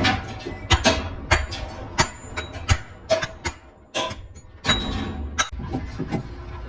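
Irregular metal clanks and strikes, about ten of them, several leaving a short high ring, over a low steady hum.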